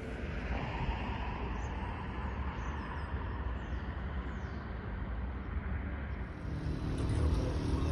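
Steady rumble of vehicle noise. A low, even hum joins in about six and a half seconds in and the sound grows slightly louder.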